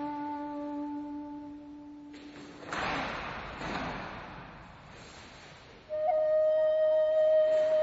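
Slow solo flute music. A low held note fades out, a couple of breathy swells of air follow, and about six seconds in a higher note starts loudly and is held.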